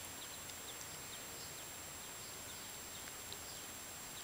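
Faint steady outdoor background hiss, with a scatter of light, high ticks.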